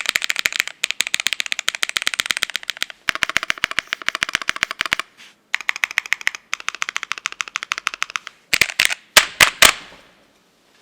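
Fast typing on a Cyberboard R3 mechanical keyboard with an aluminium plate, lubed ICY Silver switches and Kelowna transparent keycaps: a rapid clatter of keystrokes in runs broken by brief pauses. Near the end come about half a dozen separate, louder key strikes, and then the typing stops.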